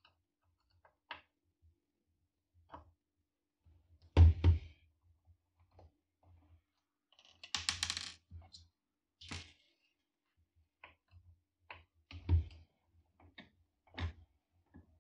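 Scattered clicks and knocks of hand work with a screwdriver, taking the stand screws out of a flat-screen TV's back. Two sharp knocks come about four seconds in, a short rattle follows around the middle, and more single knocks come near the end.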